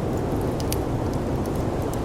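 Steady, dense rush of snowstorm wind, with several sharp pops and crackles of a wood fire scattered over it.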